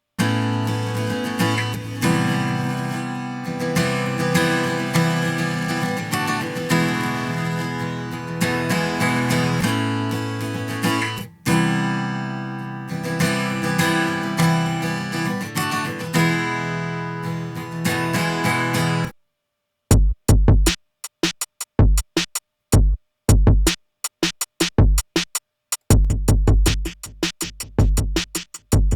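Music: a track of plucked guitar over a drum-machine beat plays for about 19 seconds and cuts off suddenly. After about a second of silence it comes back as a choppy beat of short, punchy low drum hits with silent gaps between them.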